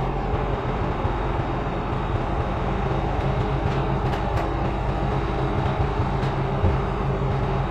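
A steady low mechanical rumble with a constant low hum and a few faint ticks.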